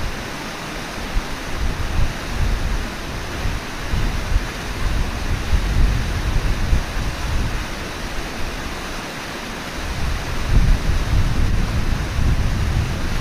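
Steady rushing of river water, with wind rumbling on the microphone in uneven low gusts.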